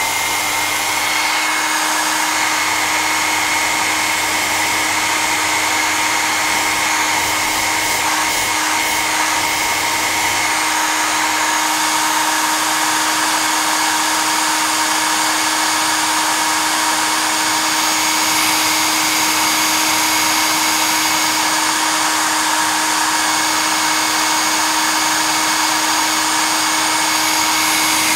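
Hair dryer running steadily, a loud even rush of air over a constant motor hum.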